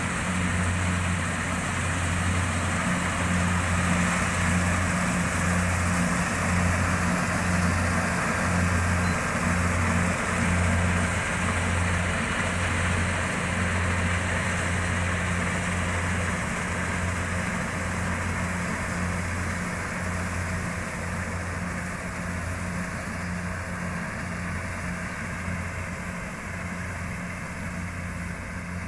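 Rice combine harvester's diesel engine and machinery running steadily with a low hum, gradually growing fainter.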